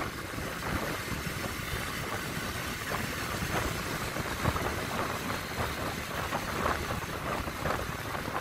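Motorbike traffic heard from a moving motorbike: steady engine and road noise with no breaks.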